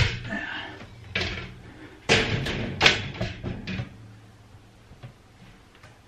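Metal wire-grid shelf knocking and thudding as it is lifted and set onto its wall brackets: a string of sharp knocks in the first few seconds, the loudest about three seconds in, then dying away.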